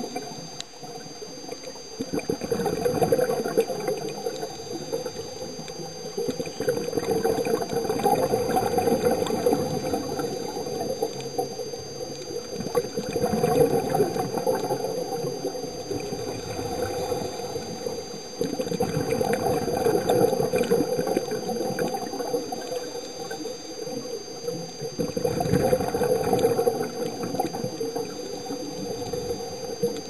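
Scuba diver's regulator underwater: bursts of bubbling from exhaled breaths, swelling about every five or six seconds, over a steady hiss with two faint high tones.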